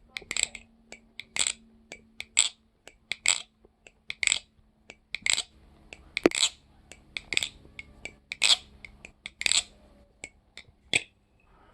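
Converted Mako balisong (butterfly knife) trainer being flipped as a sound check: a sharp metallic clack about once a second as the handles swing closed and open, with lighter ticks and rattles between, the steel ringing briefly after each clack.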